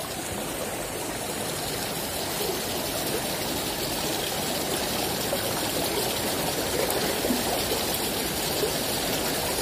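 Small river flowing, a steady rush of running water.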